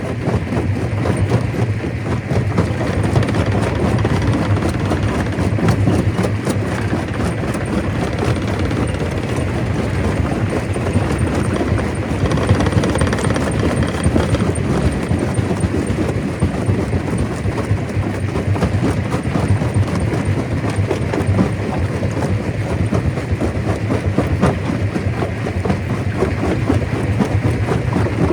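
Stone crusher running steadily under load, a continuous dense rattle of rock being broken over a constant low machine hum.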